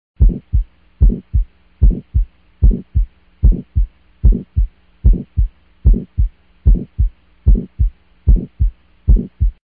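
Heartbeat sound effect: a steady lub-dub double beat, a strong low thump followed closely by a softer one, repeating twelve times at a little under one beat a second, over a faint steady hum.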